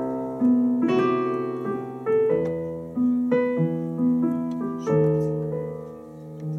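Casio Privia digital piano played with both hands: chords and melody notes struck every half second to a second, each ringing on and fading.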